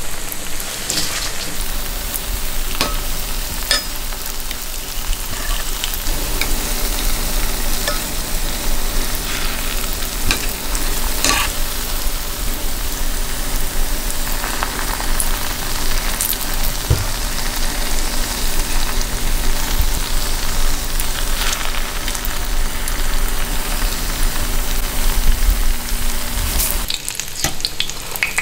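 Breaded mashed-potato balls deep-frying in very hot oil in a stainless steel skillet: a steady, busy sizzle with scattered sharp crackles and pops. A low steady hum runs underneath and stops near the end.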